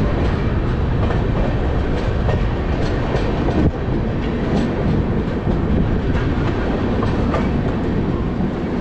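Indian Railways express passenger train running at speed, heard from outside the coach: a steady rumble of the wheels on the track with irregular clicks over rail joints.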